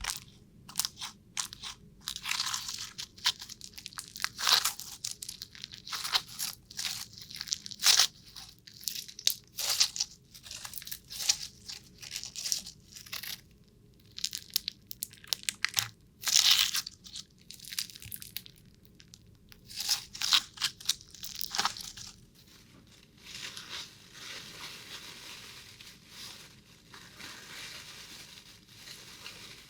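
Irregular crunching and crackling, many sharp crunches in quick clusters, giving way about three quarters of the way through to a softer, steadier crackling hiss.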